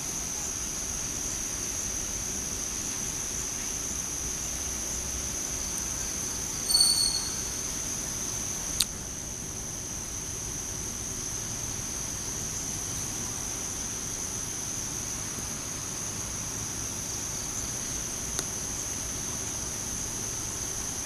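Steady high-pitched drone of insects in the forest canopy. A brief high whistled note stands out about seven seconds in, and a sharp click comes just before nine seconds.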